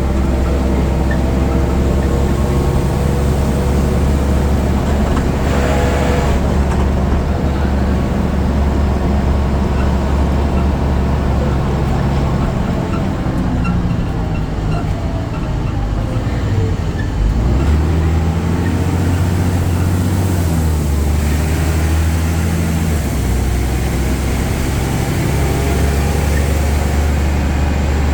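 BredaMenarini Avancity Plus city bus with its Deutz diesel engine and ZF gearbox running while driving. The engine note falls and then climbs again about halfway through.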